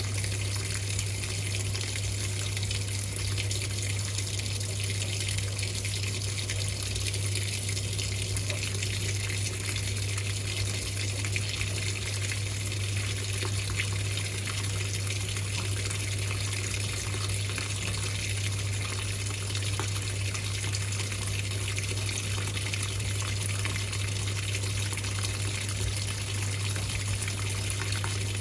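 Whirlpool 3RLSQ8033SWD top-loading washing machine with water rushing steadily through it over a steady low hum.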